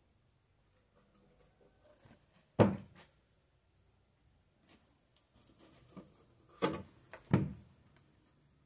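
Wooden boards knocked and set down against each other while pieces of a small counter are fitted together: one sharp knock about two and a half seconds in and two more close together near the end, with lighter taps and handling rustle between.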